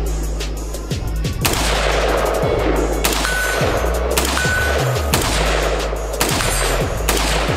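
Troy A4 AR-15 fired in single shots at a moderate pace, several sharp reports with a short echo, over background music with a steady stepping bass line.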